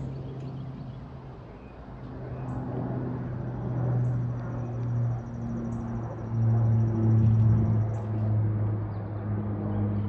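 A steady engine drone, a low hum that shifts pitch in small steps and grows louder about six seconds in.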